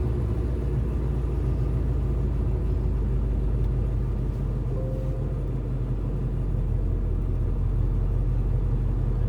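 Ford Mustang Boss 302's 5.0-litre V8 idling steadily, a low, even rumble.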